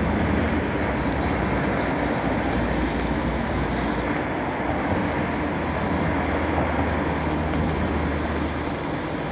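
Stick-welding arc on a Ronix RH-4604 inverter welder turned up to its highest current setting: the electrode burns with a steady, dense crackle and sizzle.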